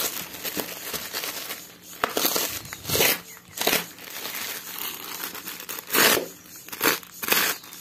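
Thin black plastic shipping bag being torn open by hand, crinkling, with several short rips.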